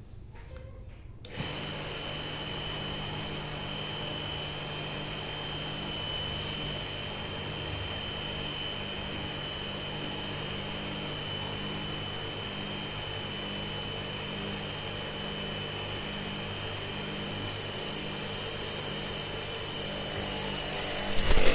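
Jet cleaner (high-pressure washer) switched on about a second in, its motor and pump running steadily with a pulsing hum and a thin high whine. A hiss grows louder near the end. It is being test-run after its worn water seals were replaced to cure a weak spray.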